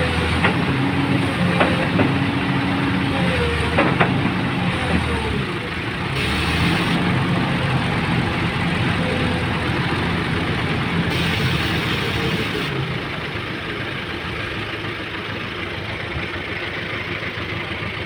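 XCMG XE215C hydraulic excavator's diesel engine running under load as it digs and swings, with gliding whines and a few sharp clanks in the first four seconds. The engine settles somewhat quieter near the end.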